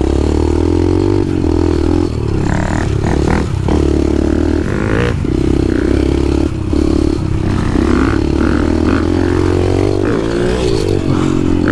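Dirt bike's single-cylinder four-stroke engine running under throttle on a rough trail, its note breaking off briefly several times, with clattering from the bike over the ground.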